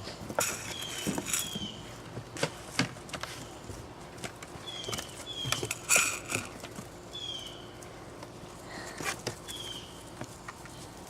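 Dogs and puppies moving about at the back stairs: scattered paw taps and knocks, with short high, falling squeaks every second or two.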